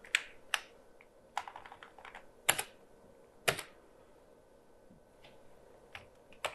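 Keys being pressed on a computer keyboard: scattered clicks in short runs, with two louder key strikes about a second apart midway, a pause, then a couple more keystrokes near the end.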